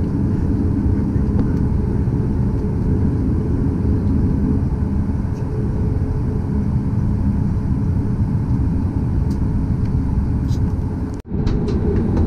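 Boeing 737 MAX's CFM LEAP-1B jet engines idling on the ground, heard from inside the cabin as a steady low rumble. The sound drops out abruptly for a split second near the end, then carries on.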